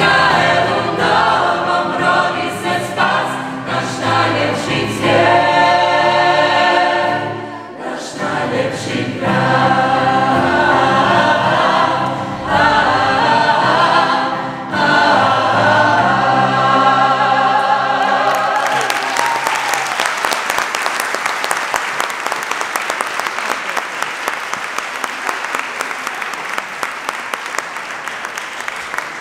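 Mixed choir of young women and men singing a Christmas song; the song ends a little over halfway through and audience applause follows, a steady clapping that slowly dies down.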